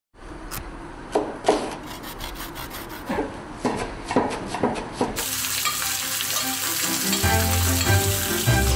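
Knife chopping herbs on a wooden cutting board, a run of uneven knocks. About five seconds in, a steady sizzle of frying takes over, and music with a deep bass comes in near the end.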